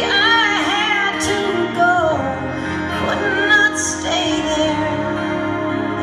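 A woman singing live into a microphone, holding long notes with vibrato over sustained keyboard chords.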